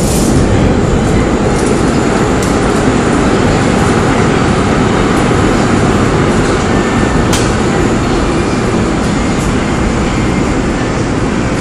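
Korail 311000-series electric multiple unit pulling into the station, a loud steady rumble of wheels on rail with a couple of sharp clicks along the way.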